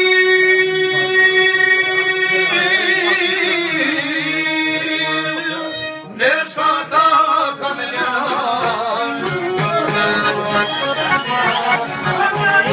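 Albanian folk music played live on çifteli, long-necked lute, violin and accordion. For about the first six seconds a man sings long held notes that waver into ornaments. After a short break, the instruments carry on with a busier plucked and bowed passage.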